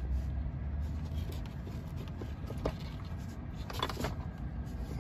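Handling noise from a Tesla Model 3 sun visor being worked loose from the headliner: a few light clicks, then a short cluster of clicks and rattle about four seconds in, over a steady low rumble.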